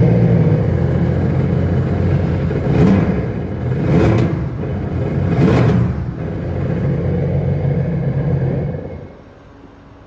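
Sea-Doo GTX 300's supercharged Rotax 1630 ACE three-cylinder engine starts at once and runs, revved briefly three times, then is shut off about nine seconds in. It is running again after a new spark plug cured its no-start.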